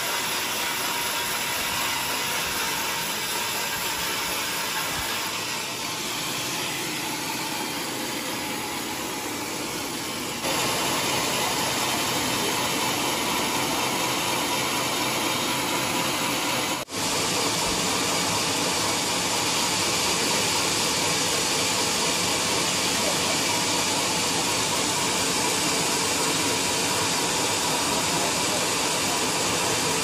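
Large sawmill band saw running steadily while cutting a teak beam, a dense even noise with no clear pitch. It steps up louder about ten seconds in and breaks off for an instant near the middle.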